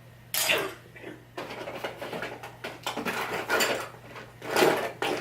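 Hard plastic makeup compacts and containers clattering and clicking as they are picked up and handled, in several irregular bursts, the loudest near the end.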